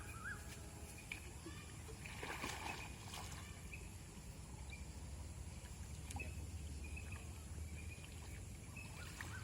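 Shallow floodwater sloshing and splashing as it is worked by hand, with a louder splash about two seconds in. Short bird chirps come and go faintly over a steady low rumble.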